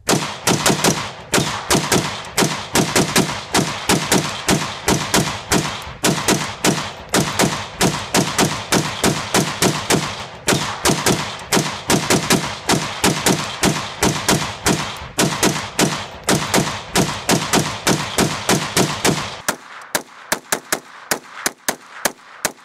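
Rapid semi-automatic rifle fire from a 7.5-inch-barrelled Bushmaster AR-15 short-barrelled rifle in 7.62x39 with a Strike Industries Cookie Cutter compensator, about three to four shots a second, with a second rifle firing alongside. About twenty seconds in the shots turn quieter and thinner.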